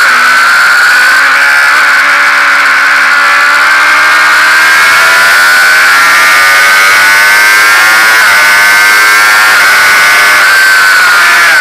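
Sport motorcycle engine at high revs, heard from the bike itself, its high-pitched whine climbing steadily as it accelerates hard, with wind rush over the microphone. Near the end the pitch dips briefly and climbs again.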